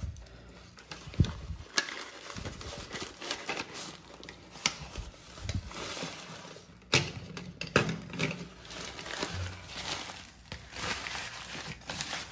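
Newspaper wrapping crinkling and rustling as it is pulled away, with several sharp clacks as sheathed knives in wood-and-aluminium scabbards are set down on a granite countertop.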